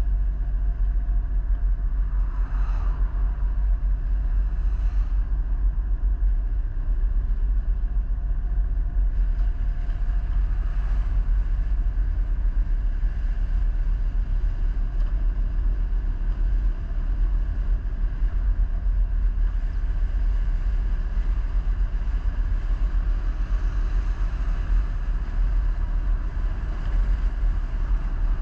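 Vehicle on the move: a steady low rumble of engine and road noise.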